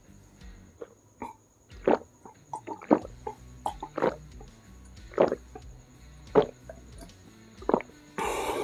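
Close-miked gulps of water from a glass, one swallow about every second, six or so in a row. A breathy exhale comes near the end.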